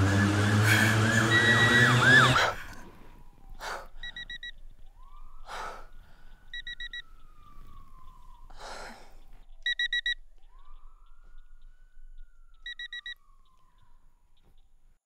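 A loud, dense wash of sound cuts off suddenly about two and a half seconds in. After it, a faint siren slowly rises and falls twice, and a short electronic beeping comes in four brief bursts. Between them a woman takes three sharp, gasping breaths.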